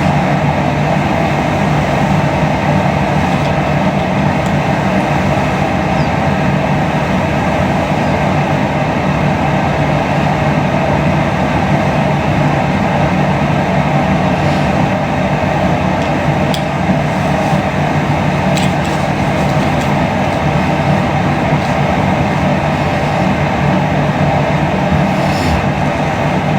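Steady, even rumbling noise with a hiss above it, holding one level throughout.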